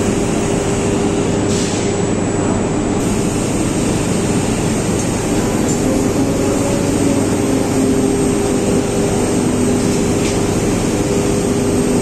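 Steady loud industrial hum and rumble of a 35-tonne induction melting furnace plant as the furnace crucible tilts, with a few steady hum tones held throughout.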